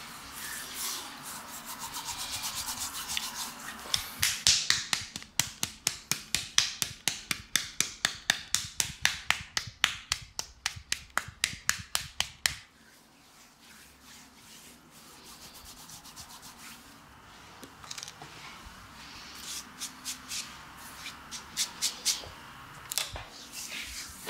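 Hands massaging bare, oiled skin on a man's chest: soft rubbing and sliding, then for about eight seconds a fast, even run of hand slaps, tapotement-style percussion massage. The slapping stops abruptly and gives way to quieter rubbing with a few light pats near the end.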